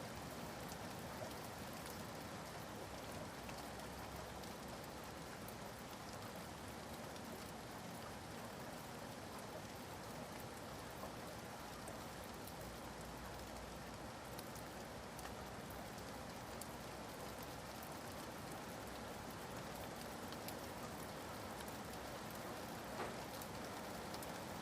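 Steady rainfall: an even hiss of rain on surfaces, with scattered sharper ticks of single drops.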